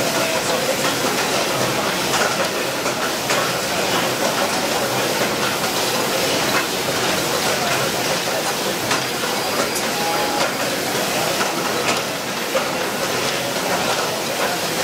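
Steady din of machinery and background voices in an exhibition hall, with a few short clicks scattered through it.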